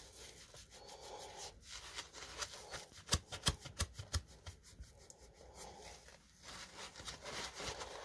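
Light scrubbing of a furnace flame sensor's metal rod with a green Scotch-Brite scrub pad, cleaning off white deposits: faint scratchy rubbing, with a run of small clicks in the middle.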